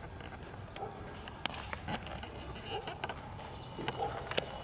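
A few sharp pops of a baseball smacking into a leather glove during a throwing drill, over faint distant voices and open-air background noise.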